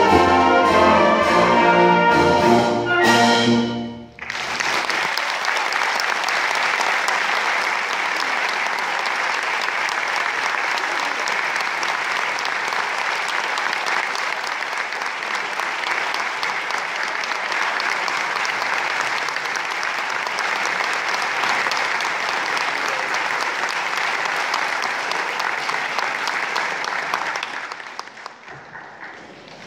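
Wind band of brass, woodwinds and percussion playing the closing bars of a pasodoble, with short final chords that cut off about four seconds in. Sustained audience applause follows and dies away near the end.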